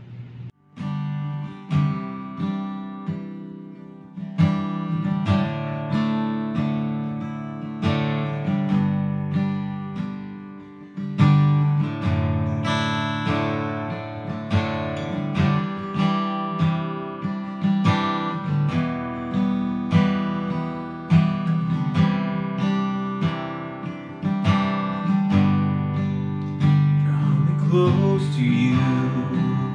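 Acoustic guitar strumming chords in a steady rhythm, the chords changing every few seconds.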